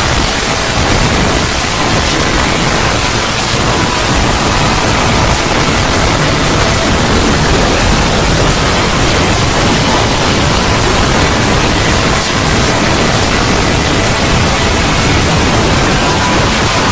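A 'void' ambience sound effect: a loud, steady wash of noise like a rushing hiss and rumble, with faint steady tones under it and no change throughout.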